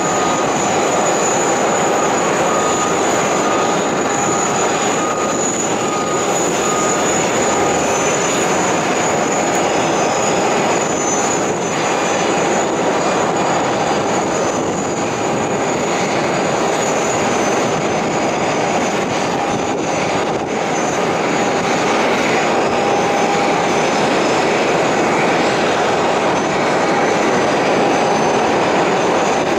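Steady aircraft turbine noise: a loud, even roar with a high, steady whine over it and a fainter mid-pitched tone that comes and goes.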